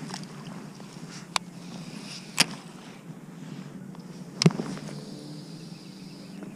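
Handling noise from fishing gear against the camera: three sharp clicks, the last and loudest a knock with a thump, over a steady low hum.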